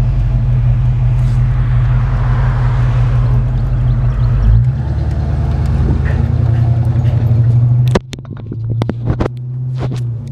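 Ford Mustang convertible driving with the top down: a steady low engine and road drone with wind, its note changing about halfway through. Near the end the drone drops and a run of sharp clicks and knocks follows.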